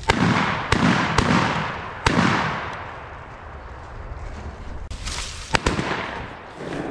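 Shotgun shots, each trailing off in an echo: four in quick succession in the first two seconds, then more around five seconds in.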